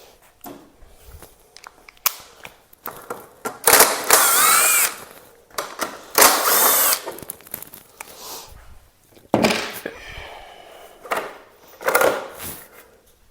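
Handheld power drill/driver run in short bursts while taking off fairing bolts. Two main runs come about four and six seconds in, its whine rising and falling with the trigger, and shorter runs and clicks follow near the end.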